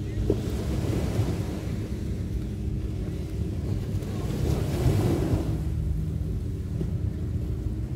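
Small surf washing up a sandy beach, one wash building to its loudest about five seconds in and then drawing back, over a steady low rumble of wind on the microphone.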